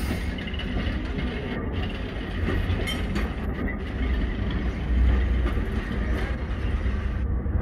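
Heritage electric tram running along its track, heard from aboard its open end platform: a steady low rumble of wheels and running gear, swelling about five seconds in.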